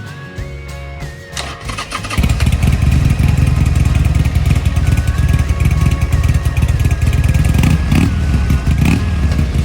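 Freshly rebuilt 2004 Buell XB9R's air-cooled V-twin engine starting about two seconds in and then running loud and steady. Guitar music plays before it comes in.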